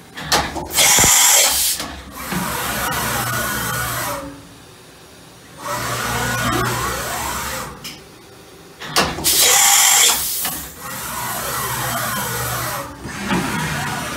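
DMG Mori DuraVertical 1035eco vertical machining centre changing tools: a short, loud rushing burst as a tool is swapped, then motor whines that rise and fall in pitch as the axes and tool changer move. The cycle comes twice, with the bursts about a second in and again about nine seconds in.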